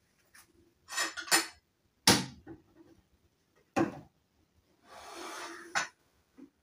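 Dishes and cutlery handled on a kitchen counter: about five sharp clinks and knocks, with a scraping sound lasting about a second just before the last one.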